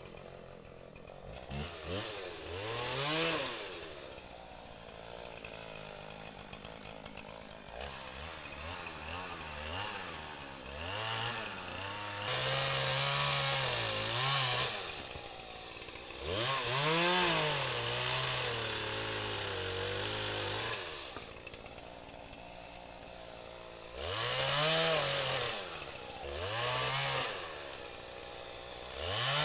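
Two-stroke chainsaw revved up and let back down to idle again and again as it makes short cuts through downed trees, with two longer held cuts in the middle.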